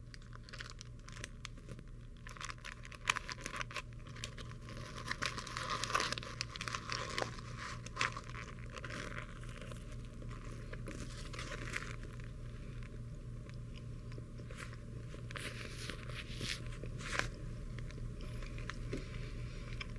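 Paper cheeseburger wrapper crinkling as it is peeled open, followed by close-up biting and chewing of the cheeseburger. The crinkles come as many sharp crackles through the first half, and the chewing runs on through the second half.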